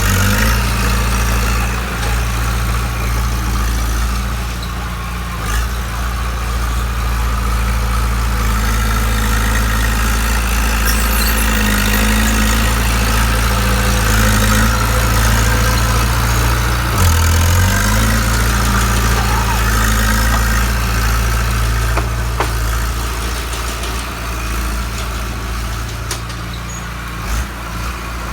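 Bulldozer's diesel engine running at a steady idle, with a brief stronger low note partway through.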